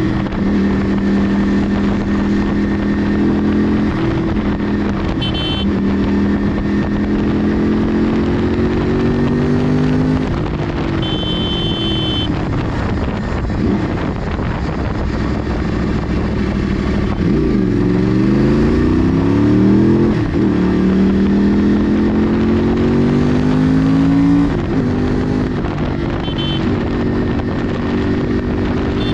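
Yamaha R1 crossplane inline-four running through an aftermarket Toce exhaust, heard from on the bike at riding speed. The engine note holds steady at cruise, rises several times under acceleration and drops briefly when the throttle comes off. Short horn beeps sound three times.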